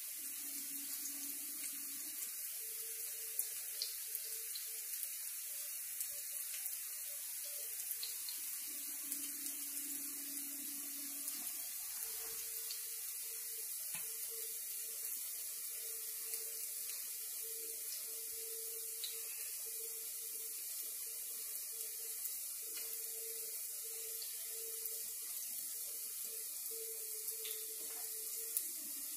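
Potato pancakes frying in shallow oil in a skillet: a steady sizzling hiss with scattered small pops.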